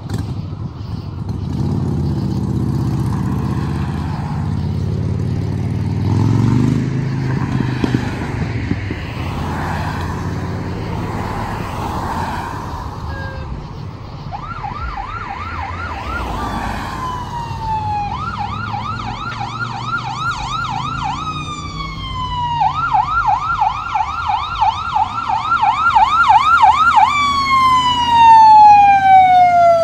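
Low engine and traffic rumble, then from about halfway an electronic emergency-vehicle siren on a responding fire truck comes in. It alternates rapid yelp warbles, about four a second, with falling wail glides and grows louder as it approaches. A long falling wail near the end is the loudest part.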